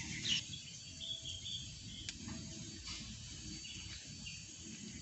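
Outdoor ambience: a steady high insect hum with a few short bird chirps over a low background rumble, and a faint click about two seconds in.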